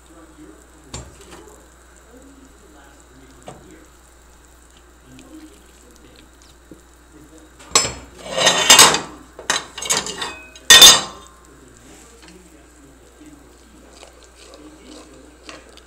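Cooking utensil clattering and knocking against a metal cooking pot: a cluster of loud knocks and scrapes from about eight to eleven seconds in, with only faint background before and after.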